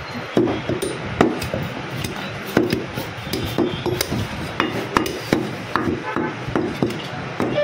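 Heavy butcher's cleaver chopping mutton into pieces on a wooden chopping block: a dozen or so sharp chops at an uneven pace, about one to two a second.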